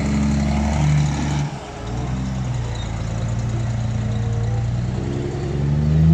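Heavy truck's diesel engine running at low revs as it pulls a double curtain-side trailer through a tight turn: a steady low drone that dips briefly about a second and a half in and climbs again near the end.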